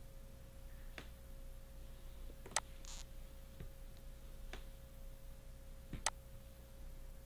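Computer mouse clicking about five times, the two sharpest clicks about two and a half and six seconds in, over a faint steady electrical hum.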